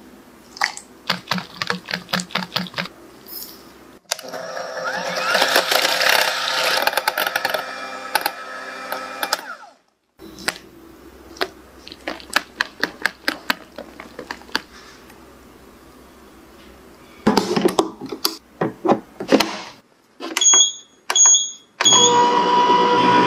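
Hand whisk beating a creamy mixture in a glass bowl, with quick, regular strokes clicking against the bowl, after scattered clicks and a louder stretch of mixing noise. Near the end a countertop ice cream maker's buttons beep three times and its motor starts with a steady hum.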